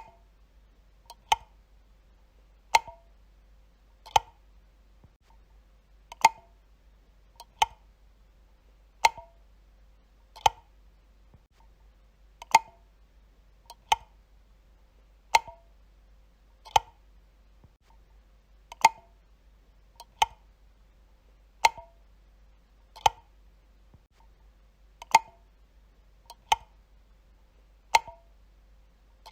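Light switch flicked on and off again and again, one sharp click about every second and a half.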